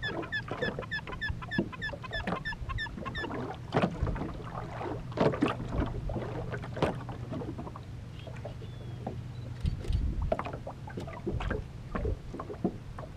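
Small waves slapping and knocking irregularly against the aluminum hull of a drifting fishing boat, over a low steady hum. For the first three seconds a quick series of chirps repeats about four times a second, then stops.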